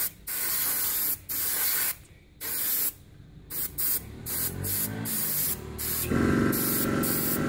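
Paasche H airbrush spraying thinned enamel paint at about 20 psi, hissing in on-and-off bursts as the trigger is pressed and released. About six seconds in, a steady mechanical hum joins it.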